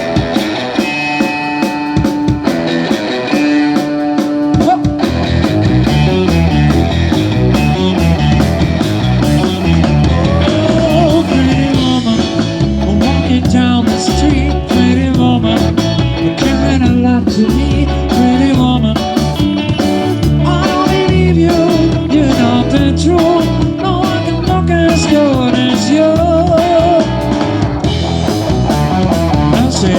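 Live rock band playing an instrumental passage on electric guitar, bass and drums, with a lead guitar line gliding over a steady beat. The bass and drums come in about five seconds in.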